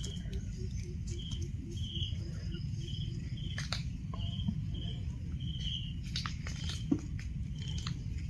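Outdoor ambience: a steady low rumble with short, high chirps repeating throughout, from a small calling animal such as an insect or bird, and a few faint clicks.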